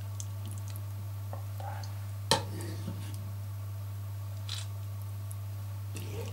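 Kitchen knife cutting boiled pork knuckle meat against a wooden board and plate: scattered light clicks and one sharp knock about two seconds in, over a steady low hum.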